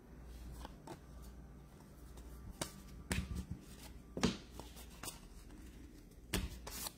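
Baseball trading cards being flipped through one at a time in the hand: scattered soft snaps and slides of card on card, with a few louder ones about three and four seconds in.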